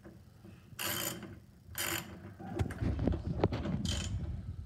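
Ratchet wrench with a 10 mm socket clicking in short strokes as it loosens a door mirror's mounting bolt: two brief bursts of ratcheting about a second apart, then a busier run of clicks and knocks.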